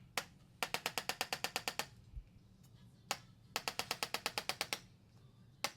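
Handheld chiropractic adjusting instrument firing. Each time there is a single sharp click, then after about half a second a fast, even run of about ten clicks a second for just over a second. This happens twice, and a third single click comes near the end.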